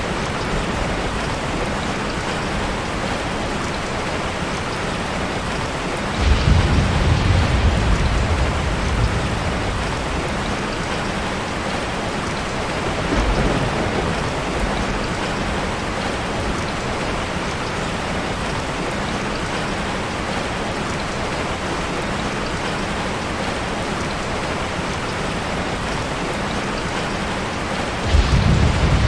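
Steady heavy rain falling, with rolls of thunder: a rumble about six seconds in that lasts a few seconds, a weaker one a few seconds later, and another starting near the end.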